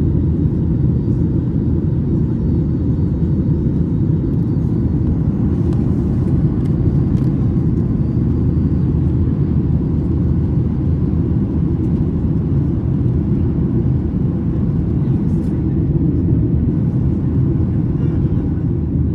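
Steady low rumble of cabin noise inside a Boeing 737-800 airliner: engine and airflow noise heard from a window seat, with no change in pitch or level.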